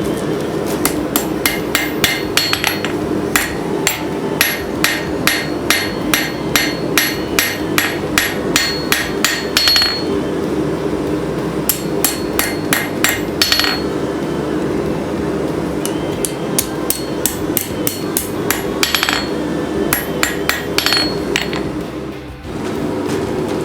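Hand hammer striking hot steel on an anvil, about two blows a second for the first ten seconds, then shorter runs of blows with brief pauses between them, over a steady drone.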